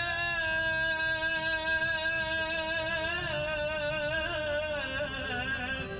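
Live Iraqi folk song: a male voice with violin and oud on one long drawn-out note that breaks into wavering ornamental turns about three seconds in.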